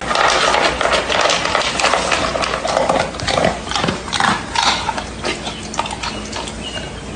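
A dog passing gas: a long, loud, rough run of close-set small pops and rasps, starting abruptly and easing off somewhat over the last few seconds.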